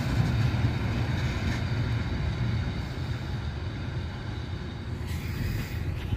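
Diesel railcar train pulling away, its low engine and running rumble fading steadily as it recedes down the line.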